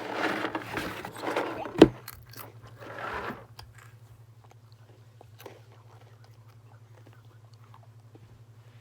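Crunching and chewing of Goldfish crackers close to the microphone, with one sharp, loud crunch about two seconds in. The chewing stops after about three and a half seconds, leaving a low steady hum and faint ticks.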